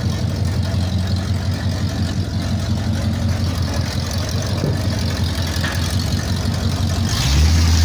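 Buick Riviera engine running through long-tube headers with open straight pipes and no mufflers: a steady, low exhaust note. Near the end it rises in pitch and gets louder.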